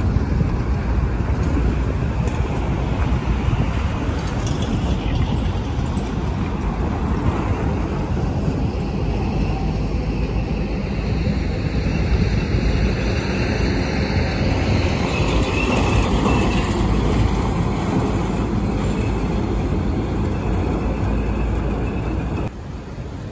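Steady rush of road traffic on a highway: cars, minibuses and heavy trucks passing, with wind rumbling on the microphone. The sound drops sharply near the end.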